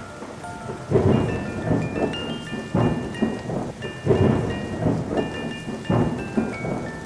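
Background music: high bell-like notes held over four heavy booming hits spaced about a second and a half apart.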